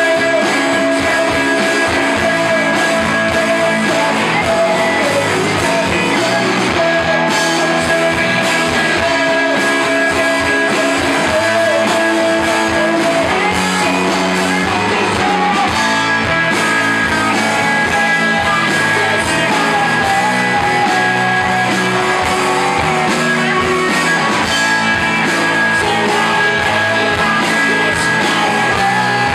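Live rock band playing: electric guitars, bass guitar and drum kit, with sung lead vocals over them.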